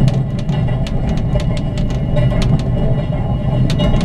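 Passenger train carriage running along the track: a steady low rumble with short clickety-clack clicks from the rails, coming in quick clusters.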